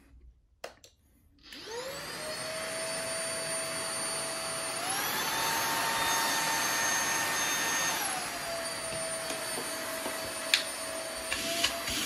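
MooSoo K17U cordless stick vacuum's brushless motor starting about a second and a half in with a rising whine, then running with a steady whine and airflow hiss. About five seconds in it steps up to a higher pitch as it is switched to the faster power mode, and about three seconds later it drops back to the lower mode; a single click near the end.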